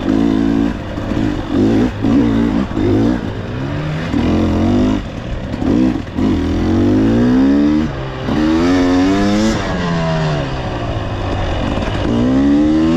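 A dirt bike engine being revved on and off over and over. There are short throttle blips in the first few seconds, then longer rising pulls that drop back, as the bike is worked through rocks, roots and small ledges.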